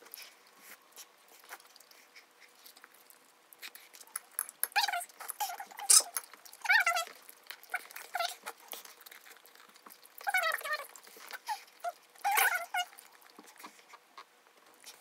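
About four short, high-pitched, wavering whimpers, with light clicks of utensils between them.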